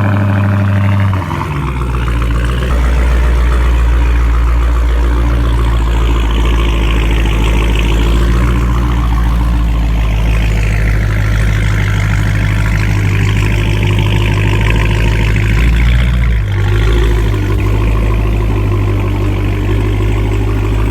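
Supercharged 6.2-litre Hemi V8 of a 2017 Dodge Hellcat running at low revs as the car is driven slowly. It holds a steady low note that shifts about a second and a half in and again around sixteen seconds in.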